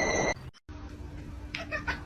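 Music cuts off just after the start; about a second and a half in, a cat gives a quick run of short meows, several in half a second.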